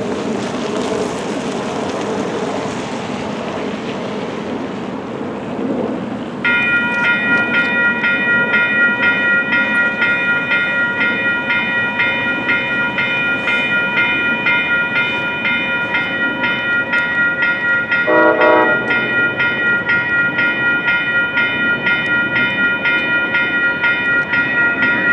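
Road traffic noise, then a railroad crossing's WCH Type 4 electronic bell starts about six seconds in and rings with a rapid, even, repeating ding: the crossing has activated for an approaching train. About eighteen seconds in, a short horn blast sounds over the bell.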